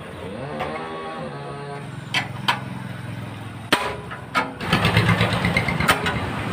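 A motor vehicle engine running nearby, rising and falling in pitch about a second in, then humming steadily and growing louder and rougher from about four and a half seconds in. Over it come a few sharp metal clinks of a spanner working on the diesel engine's fittings.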